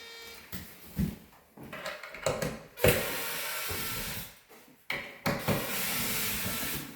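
Power drill run twice, each run a steady second and a half or so, with clicks and knocks of handling between them.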